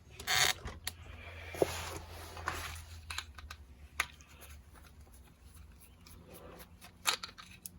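Small screwdriver working a tiny countersunk screw out of a plastic radio case, with light scraping and scattered sharp clicks of handling the small parts, and a burst of rustling near the start.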